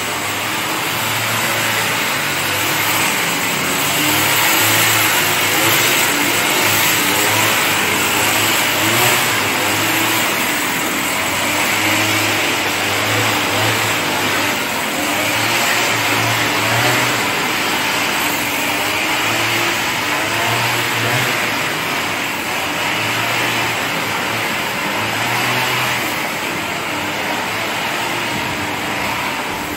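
Steady road traffic noise, with the low hum of vehicle engines coming and going.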